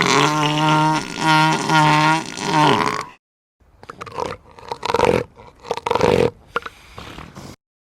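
Elephant seal calls: a loud, pitched bellow in about four pulses lasting roughly three seconds, then after a short pause a string of shorter, rougher calls.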